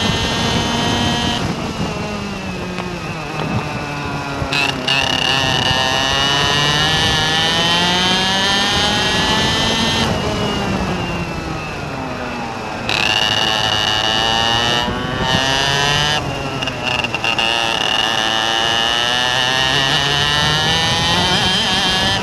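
An engine running continuously, its pitch rising and falling slowly over several seconds as it speeds up and slows down, with a steady high whine above it that drops out for a few seconds near the middle.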